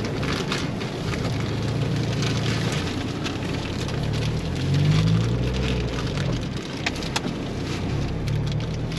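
4x4 vehicle's engine running, its pitch rising around five seconds in as it revs, under a steady rushing hiss with scattered crackles.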